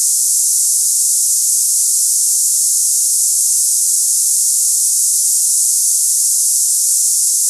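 A cicada-like hissing tinnitus sample: a steady, high-pitched hiss with no low sound at all, unchanging in pitch and level.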